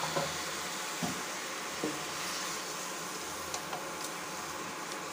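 Boiled eggs being stirred with a spatula in a steel pan of fried onion masala: a few light scrapes and knocks over a steady sizzling hiss.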